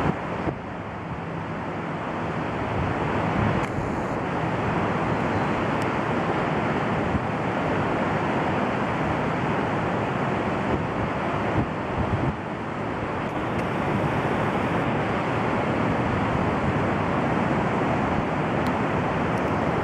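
Steady rush of interstate highway traffic mixed with wind on the microphone.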